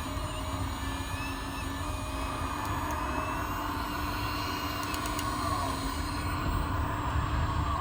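Hydraulic pump of a 1/14-scale RC hydraulic excavator running, a whine that wavers up and down in pitch as the load changes, over a steady low hum.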